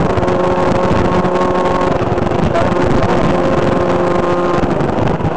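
Rally car engine running at steady, high revs, its pitch holding for several seconds and then shifting near the end, over a constant noisy rush.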